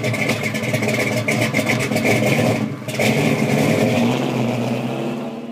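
Car engine revving and running hard, with a short drop about two and a half seconds in, then trailing off near the end.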